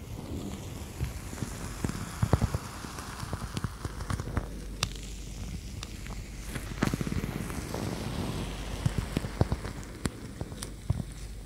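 Soft foam squishy toys shaped like fruit being squeezed, bent and rubbed together: a crackly patter of small clicks and squeaks, with a cluster of sharper clicks and soft thumps about two seconds in.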